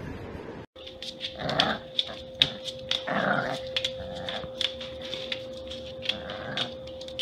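A puppy growling in four short, rough growls, with scattered sharp taps and a faint steady hum underneath.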